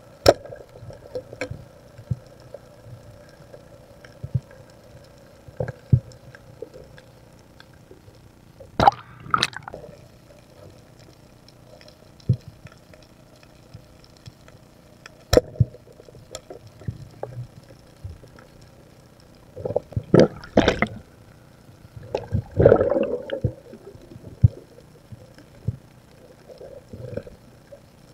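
Underwater sound through a diver's camera housing: a steady faint hum with scattered clicks and knocks. Louder bursts of gurgling water movement come about a third of the way in and twice more past the middle.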